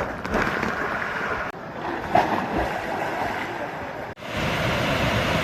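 Loud, steady rushing noise of monsoon wind and rain, with wind buffeting the microphone, changing abruptly about a second and a half in and again about four seconds in.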